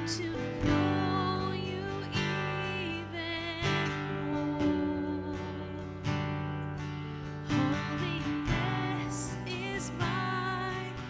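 Slow worship music: strummed acoustic guitar chords, each ringing out before the next strum every second or two, under a sustained wavering melody line.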